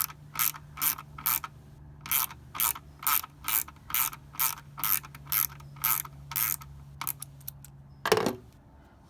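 Socket ratchet clicking in repeated short swings, about two a second, backing out a 10 mm bolt that holds the coolant reservoir. It ends with a few lighter clicks and one louder knock about eight seconds in.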